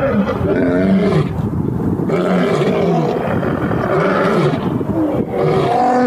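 A male lion roaring: a long run of repeated roars, one after another.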